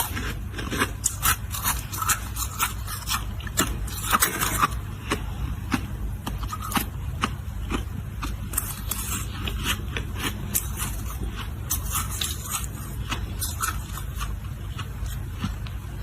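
Ice being bitten and chewed: a quick run of sharp, crunchy cracks, thickest in the first few seconds, then continuing more sparsely, over a steady low hum.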